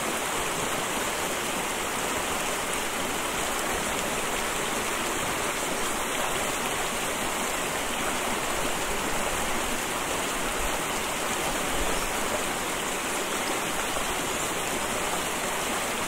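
Mountain stream water flowing steadily.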